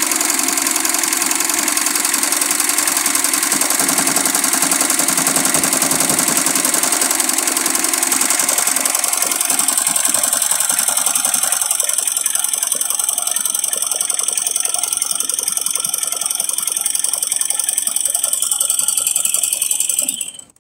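Single-head computerized embroidery machine stitching: a fast, steady clatter of needle strokes that cuts off abruptly near the end.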